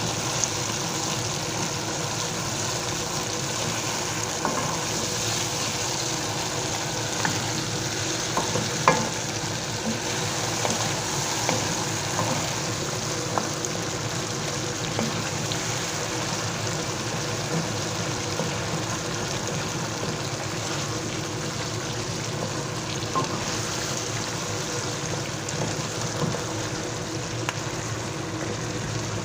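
Chicken pieces with tomato, bell pepper and potato frying in oil in a pot, a steady sizzle with a few short clicks, the sharpest about nine seconds in.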